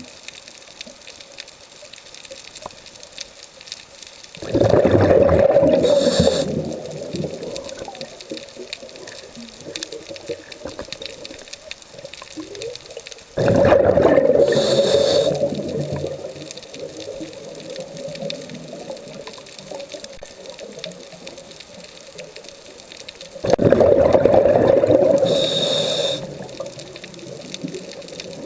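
A scuba diver breathing through a regulator underwater: three breaths about nine to ten seconds apart. Each is a couple of seconds of rushing bubbles with a brief high hiss near its end.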